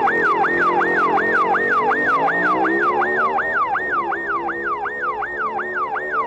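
Electronic police siren in a fast yelp, sweeping up and down about three times a second, with vehicle engines running underneath.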